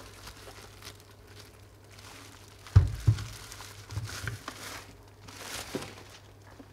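Paper and plastic packaging being handled and crinkled, with two quick knocks a moment apart about three seconds in, over a steady low hum.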